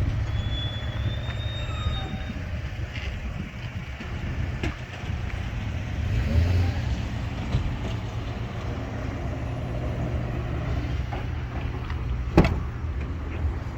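Car engine running steadily, a low hum, with a sharp click about twelve seconds in.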